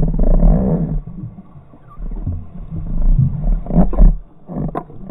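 Water rushing and rumbling against a GoPro's underwater housing as it moves down through the water, a low uneven sound that swells and fades. There are a couple of sharp clicks near the end.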